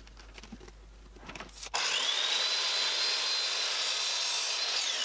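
Faint pencil and tape-measure handling sounds, then a Ryobi electric miter saw starts abruptly about two seconds in, its motor whine rising to a steady high pitch as the blade cuts through a wooden board. Near the end the whine begins to fall as the motor spins down.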